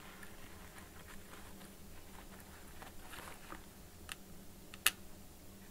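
Faint handling noises: light clicks and rustles as a laptop logic board is moved about on the bench, with one sharper click nearly five seconds in, over a low steady hum.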